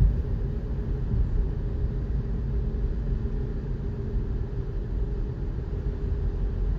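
Steady low rumble of a car on the move, heard from inside the cabin: engine and road noise with a faint constant hum.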